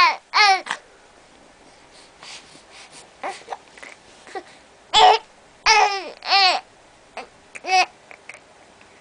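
A baby babbling in several short, high-pitched vocal bursts, broken by small hiccups. The louder bursts come at the start and again from about five seconds in, with quieter short catches between them.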